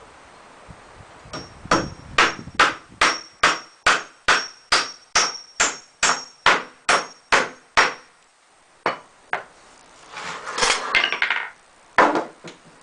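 Hammer driving nails into pallet boards: a steady run of about fifteen blows, roughly two and a half a second, with a faint metallic ring. A few more blows follow after a brief scraping noise.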